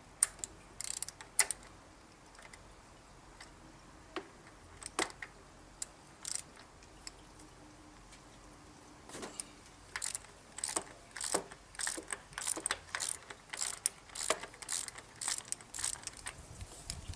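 23 mm socket ratchet undoing the cartridge oil filter housing cap on a Holden Alloytec V6: a few scattered clicks at first, then steady ratcheting clicks about twice a second from about halfway in as the handle is swung back and forth.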